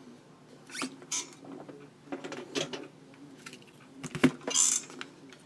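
Workbench handling noises off to the side: a few clicks and creaks, a sharp knock a little after four seconds, then a short scrape, as soldering tools are moved and set down.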